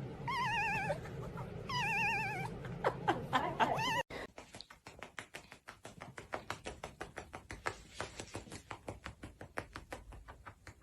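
A cat giving two wavering, warbling yowls. After an abrupt cut about four seconds in, a long run of faint rapid clicks follows, about five a second.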